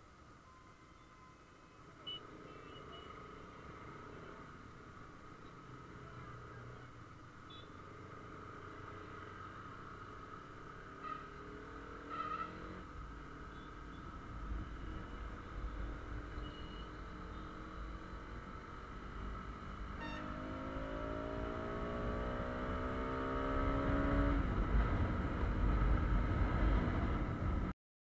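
Bajaj Pulsar RS200's single-cylinder engine pulling away from a stop and accelerating, its pitch rising twice as it revs up through the gears, with wind rumble on the microphone growing louder as speed builds. The sound cuts off suddenly near the end.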